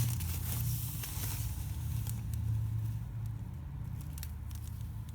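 Packaging being handled: faint rustles and small crinkling ticks, busier in the first couple of seconds, over a steady low hum.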